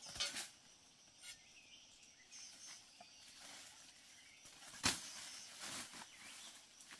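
Quiet outdoor ambience with a faint steady insect drone and a few short high chirps, broken by handling noises: a brief rustling scrape at the start and a sharp knock about five seconds in.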